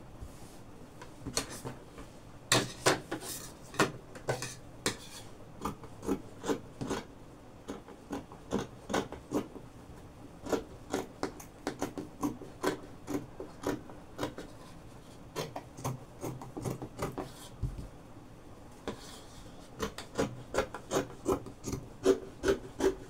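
Dressmaking scissors snipping through adire print fabric, cutting out a neckline facing: a run of short crisp snips, one or two a second, with a brief pause about three quarters of the way through.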